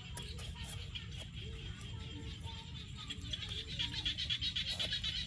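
A chorus of frogs calling in fast, pulsing trains, growing louder about three and a half seconds in, over a steady low rumble.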